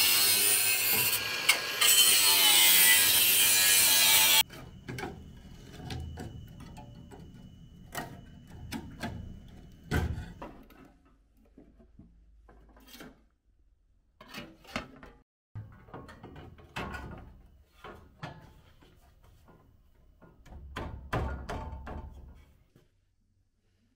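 Makita angle grinder grinding into rusted bulkhead steel for about four seconds, its pitch wavering under load, then cutting off suddenly. After that come scattered knocks and scrapes as a new bulkhead panel is handled and held against the old frame.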